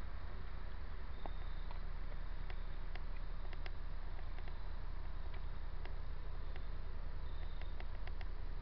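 Steady outdoor background hiss and low rumble with faint, scattered soft clicks, a little more frequent near the end.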